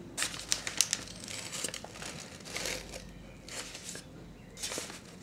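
Newspaper crinkling and rustling in irregular bursts, loudest in the first second.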